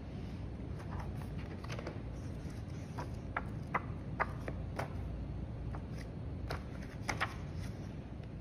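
Pages of a thick paperback book being leafed through by hand, a string of short, crisp paper flicks, over a steady low rumble.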